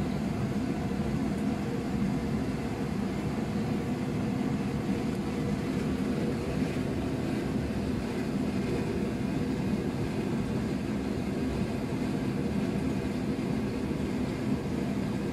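A fan or motor running continuously with a steady low drone and a few faint constant tones, unchanging throughout.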